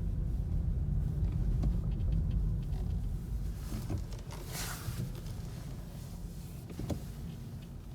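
Low road rumble inside a moving 2017 Kia Niro's cabin, with a few faint ticks or creaks, the car's unexplained creaking fault. A brief hiss comes about four and a half seconds in, and a sharp click near the end.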